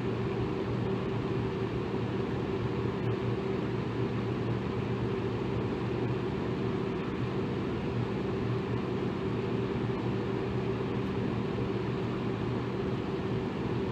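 Electric fan running steadily: an even rush of air with a low, constant motor hum beneath it.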